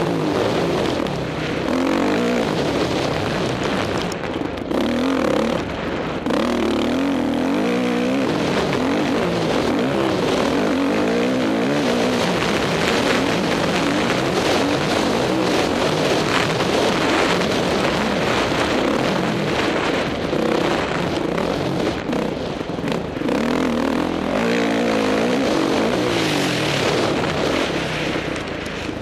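Motocross bike engine heard close from an onboard camera, revving up and dropping off again and again as the rider works through the track's straights and corners.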